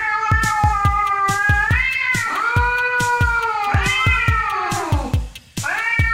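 Domestic cats caterwauling in an aggressive standoff: long, wavering yowls that rise and fall in pitch, breaking off briefly near the end. Music with a steady beat plays underneath.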